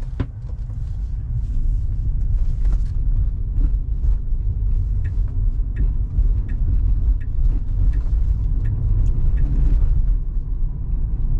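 Low road rumble and tyre noise inside the cabin of a moving Tesla Model 3, swelling over the first second or two and then holding steady, with scattered light clicks on top.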